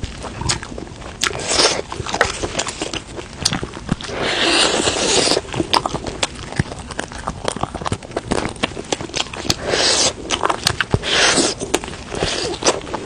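Close-up eating sounds of Sichuan peppercorn chicken being chewed: many sharp wet mouth clicks and smacks, with a few longer noisy bursts about four seconds in and again near ten and eleven seconds.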